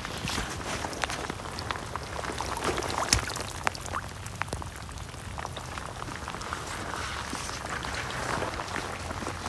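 Steady rain, with many scattered drops ticking close by, over runoff water running along a full swale channel.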